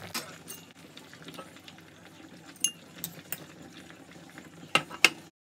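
Metal spoon clinking against a stainless steel saucepan while scooping from boiling water, with a low bubbling hiss underneath. The clinks come every second or so, the two loudest near the end, and then the sound cuts off suddenly.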